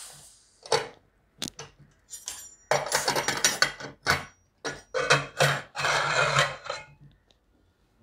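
Steam hissing from a pressure cooker's lifted weight and fading out at the start, then a run of metal clinks, knocks and scraping as the lid is worked loose and taken off.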